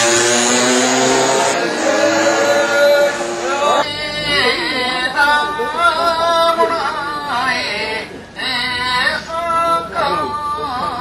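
A man singing a festival chant through a megaphone: drawn-out, wavering notes that sound thin and boxy. The chant takes over about four seconds in from a run of held musical tones.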